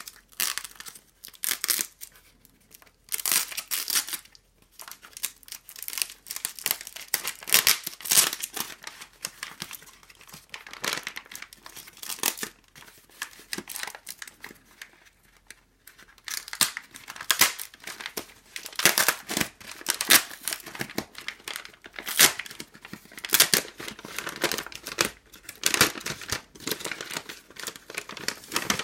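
A USPS Priority Mail mailer bag being crumpled and pulled open by hand, in irregular bursts of crinkling and tearing with a few short pauses.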